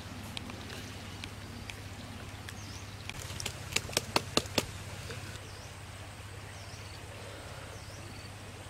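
A quick run of about five sharp wooden clicks, a little under four seconds in, as a stick spit holding a fish is set onto forked stick supports over a charcoal fire. Behind it is a steady low outdoor background with faint high chirps repeating toward the end.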